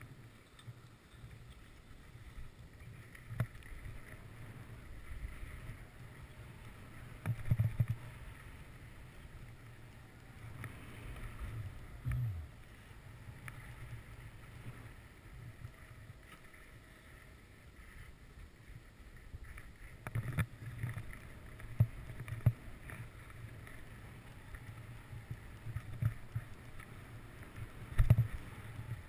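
Skis sliding and scraping over packed snow at speed, with wind rumbling on the camera microphone and occasional knocks from bumps in the run.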